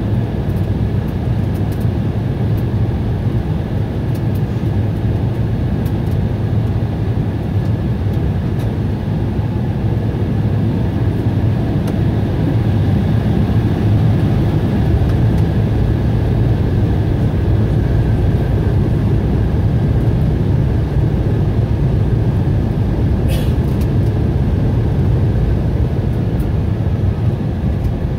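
Cabin noise of an Embraer E175 taxiing: a steady hum from its General Electric CF34 turbofan engines over a low rumble, with a faint steady whine on top.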